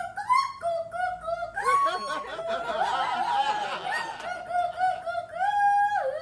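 Silly high-pitched vocal noises made on purpose: a run of short squeaky calls, a jumbled cackling stretch in the middle, then one long held wail that drops in pitch at the end.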